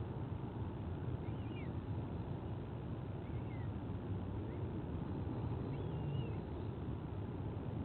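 A steady low background rumble, with a few faint, short high bird chirps that fall or waver in pitch, heard about four times.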